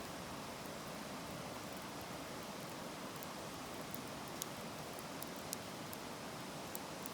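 Wood fire burning, a steady hiss with a few sharp crackles and pops, the strongest about four and a half and five and a half seconds in.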